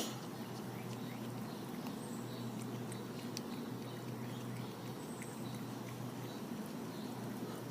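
Cats licking yogurt: faint, scattered small licking clicks over a steady low hum.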